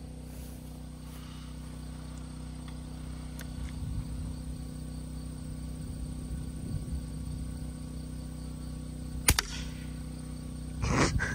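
A single sharp crack about nine seconds in, a multi-pump pneumatic air rifle firing a pellet, over a faint steady background hum.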